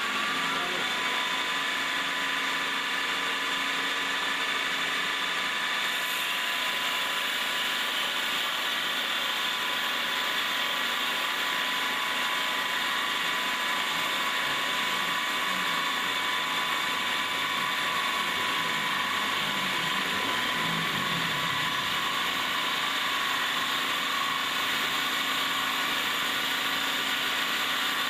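Automatic wood-leg turning machine (copy lathe) running under power: a steady motor whine over mechanical noise. Its pitch rises and settles within the first moment, then stays even.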